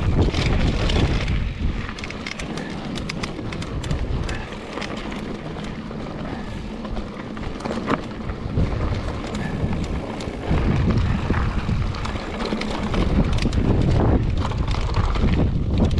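Wind buffeting the microphone as a low, unsteady rumble, with scattered knocks and rattles. It is louder in the first second or so, eases through the middle, and picks up again from about ten seconds in.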